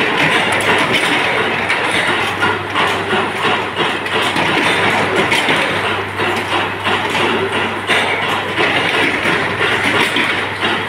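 Loud, steady workshop machinery noise with a rattling clatter, over a low electrical hum that fades briefly around the middle, from an induction forging machine heating steel rods in its coil.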